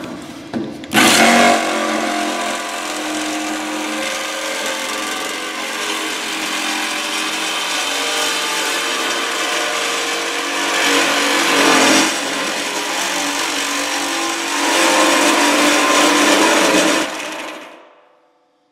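Corded reciprocating saw with a much-used demolition blade sawing through the sheet-steel wall of a drum. The noisy metal-cutting starts about a second in, runs steadily with a couple of surges, then winds down and stops near the end.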